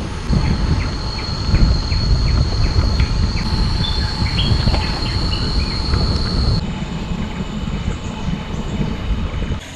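Cicadas droning in a steady high-pitched whine, with rapid chirping insect calls, over a loud low rumble. The whine stops about two-thirds of the way through.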